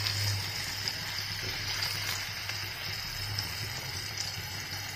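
Marinated paneer cubes shallow-frying in a little hot oil: a steady, soft sizzle.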